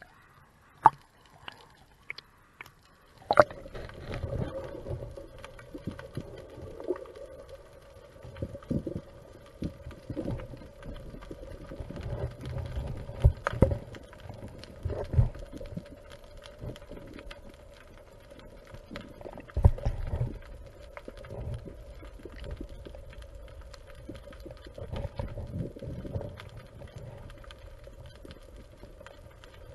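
Water splashing at the surface for the first few seconds. Then the sound goes muffled as the diver and camera go under about three seconds in: underwater noise with a steady hum, a low rumble and irregular low thumps as the diver swims down.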